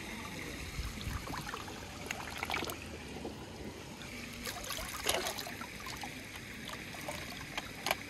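Swimming-pool water sloshing and trickling as a hand-held skimmer net is swept through it and lifted out, with a few sharp clicks along the way.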